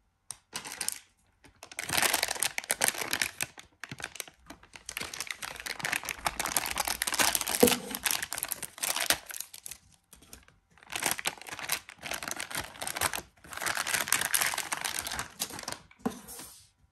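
Crinkling and rustling of a hard drive's metallised anti-static bag being pulled open and slipped off the drive, in several bursts with short pauses between them.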